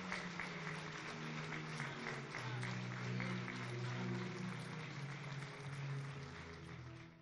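Congregation applauding over background music with long held low notes; the applause fades out near the end.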